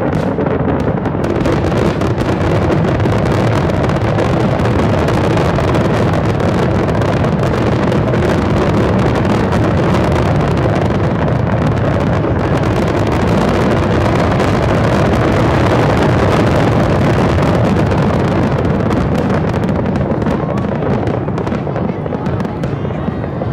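Fireworks finale barrage: aerial shells bursting and crackling so rapidly that the reports merge into one continuous din. It thins slightly near the end.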